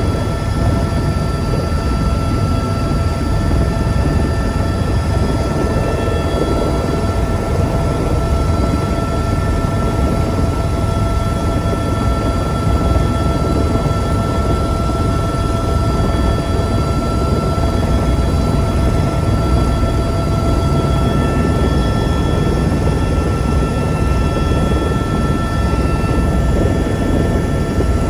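Helicopter engine and rotor running steadily, heard from inside the cockpit: a dense low rumble with a constant high whine over it.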